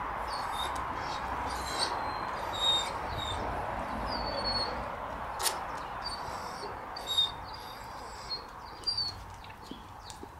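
Small birds chirping repeatedly over a steady rushing background noise, with a few sharp clicks and taps.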